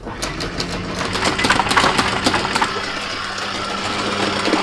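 Sailboat's engine idling steadily, with a run of sharp clicks and knocks over the first few seconds and another knock near the end.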